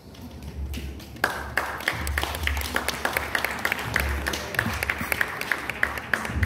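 An audience applauding in a large hall. Sparse clapping builds about a second in into steady, dense applause, with single sharp claps standing out.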